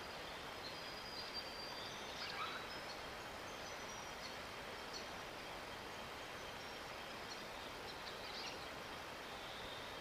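Steady outdoor background hiss with faint, high, short bird whistles and chirps scattered through it, clustered around two seconds in, with a few more later.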